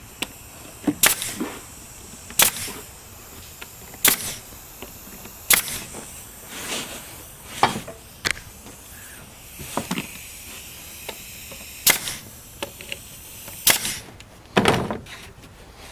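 About eight sharp single knocks, spaced one to two seconds apart, with a faint hiss between them, as plywood pieces are worked on and fastened.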